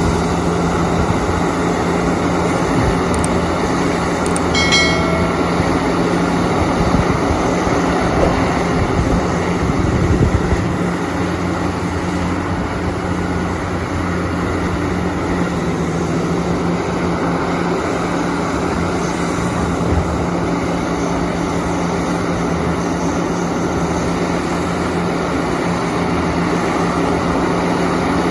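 JCB excavator's diesel engine running steadily, with a constant low hum. A short high-pitched tone sounds about five seconds in.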